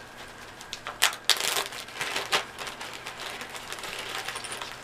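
Small clear plastic bag being handled and pulled open, crinkling with a run of irregular crackles and clicks, busiest from about one to two and a half seconds in.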